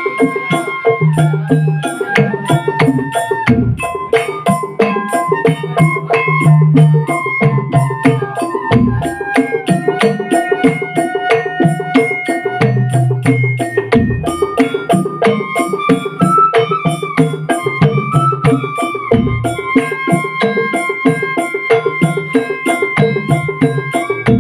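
Patrol music: a fast, steady rhythm of wooden knocks and drums played under a melody of held notes.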